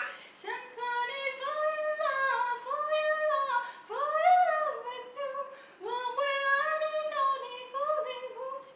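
A woman singing unaccompanied in a high voice, a melody in several short phrases with brief breaks between them.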